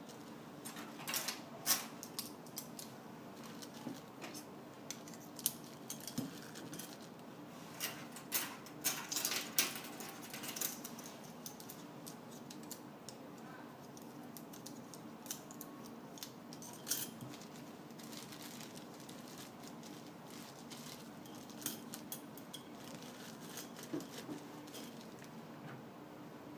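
Light clicks and clinks of CPLA plastic cutlery being handled, clustered in the first ten seconds and only now and then after, over a steady low hum.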